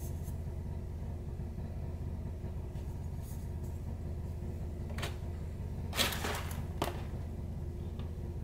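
Handling noises of a perfume bottle and its cardboard box: a sharp knock about five seconds in, then a short cluster of knocks and another knock a second later, over a steady low hum.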